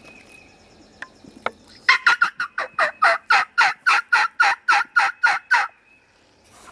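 A long run of loud turkey yelps, about four to five evenly spaced notes a second, each note breaking downward in pitch, starting about two seconds in and stopping shortly before the end.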